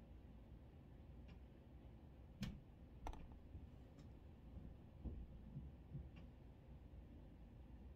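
Near silence: room tone with a handful of faint, short clicks, the clearest two about two and a half and three seconds in.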